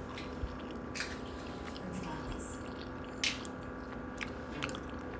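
A person chewing a mouthful of food, with a few short clicks, the sharpest about three seconds in, over a steady low hum.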